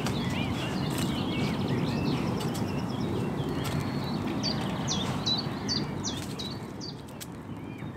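Birds calling and chirping over a steady low background noise. About halfway through comes a quick run of short, falling chirps, roughly eight in two seconds; the low noise eases off near the end.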